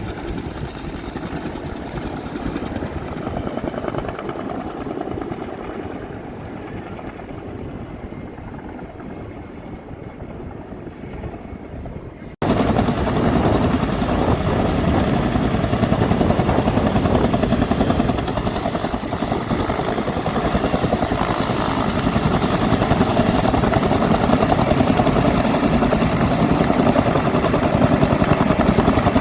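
Helicopter running steadily, fainter at first and fading over the first twelve seconds, then cutting abruptly to much louder, closer helicopter noise that continues to the end.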